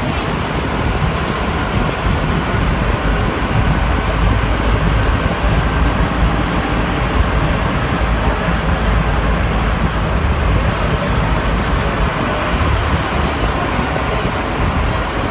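Steady, loud running noise of a Concarril NS-88 rubber-tyred metro train, heard from inside the car as it travels through a tunnel: a deep rumble with a faint whine above it.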